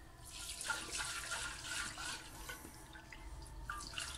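Liquid sloshing softly inside a large closed glass jar of cornelian cherries steeping in alcohol and water, as the jar is tilted and swirled gently to mix in the water.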